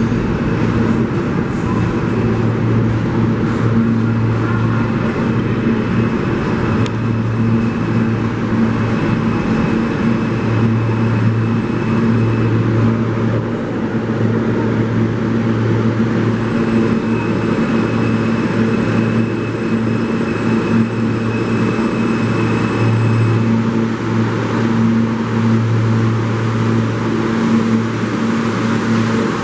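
Steady low rumble and hum of a New York City subway station, with faint high whining tones that come and go. Near the end an R160 subway train pulls into the platform.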